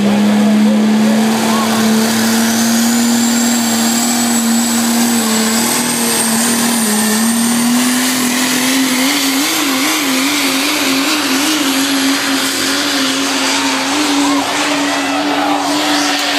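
Diesel pickup truck's engine at full throttle under load, pulling a weight-transfer sled: a loud steady drone that creeps up in pitch, wavers for a couple of seconds about midway, then holds higher. A thin high whistle rises slowly above it.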